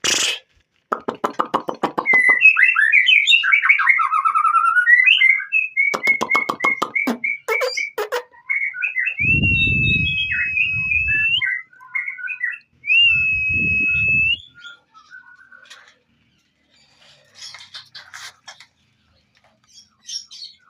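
Birds chirping and trilling in quick runs, with two long held whistled notes partway through. Two bursts of low rumbling noise come in under the whistles.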